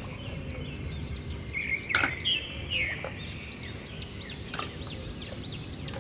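Small birds chirping over and over in short arching calls, with two sharp knocks, about two seconds in and again after four seconds, as muddy plastic toys are dropped into a plastic basket.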